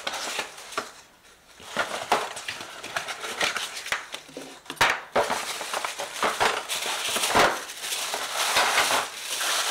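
Cardboard packaging and paper rustling and crinkling as a flat box is unpacked, with corrugated cardboard spacer blocks pulled out and set down in a few light knocks.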